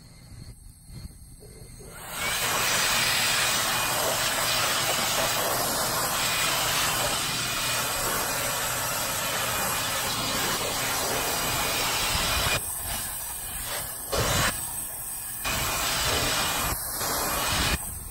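Water spraying hard from a hose onto a rooftop HVAC unit's coils to wash them: a steady spray hiss that starts about two seconds in and cuts out briefly a few times near the end.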